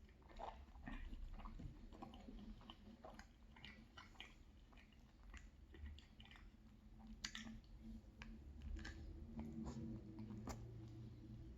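A person chewing a dense muffin close to the microphone: faint, wet mouth clicks and smacks throughout, with a couple of louder clicks near the middle and near the end.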